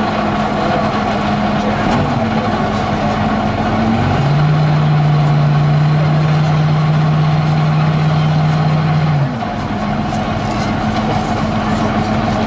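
Tracked armoured personnel carrier's engine running steadily with a deep drone. Its note steps down and gets a little louder about four seconds in, then steps back up about five seconds later.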